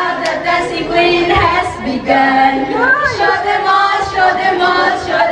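Women singing together, led by a woman's voice through a handheld microphone, with some long held notes.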